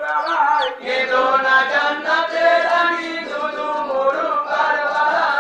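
Group of male voices chanting a marsiya, a Muharram elegy, together in a sung unison, led by a voice amplified through horn loudspeakers.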